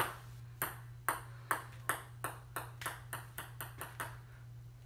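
A table tennis ball bouncing over and over, the hard clicks coming quicker and closer together.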